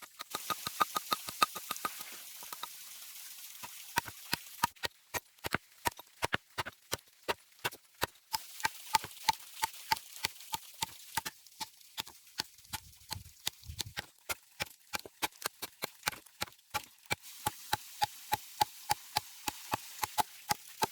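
A quick, steady series of sharp knocks, about three a second, each with a brief ring, and two dull low thuds about two-thirds of the way through.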